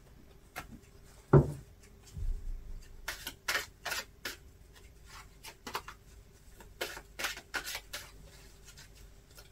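A single knock about a second in, then a run of short crisp slaps and flicks as a tarot deck is handled and shuffled by hand on a table.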